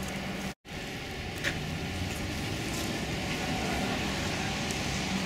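Steady rumbling background noise with a low hum and a few faint ticks, like a running vehicle. It cuts out completely for a moment about half a second in, then carries on.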